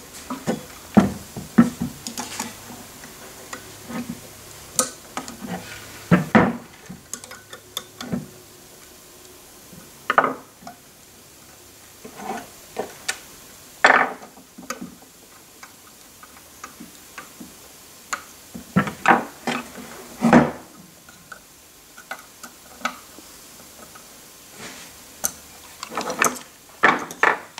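Irregular clicks, clinks and knocks of hand tools at work: screwdrivers turning and seating the screws of an actuator's motor mount, and screwdrivers being put down on a wooden bench.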